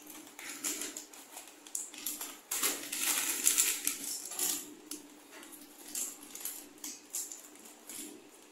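Scissors snipping open a plastic packet of soya chunks, the packet crinkling and rustling in hand in irregular bursts.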